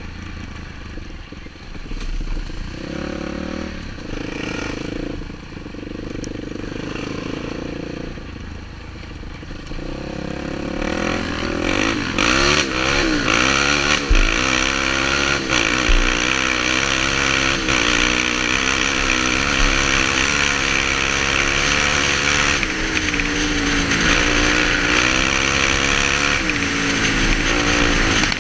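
Polaris Predator 500 quad's single-cylinder four-stroke engine under way, ridden at low throttle at first, then revving up and pulling harder about ten seconds in, its pitch rising and falling with the throttle over a rushing noise. Two short thuds near the middle.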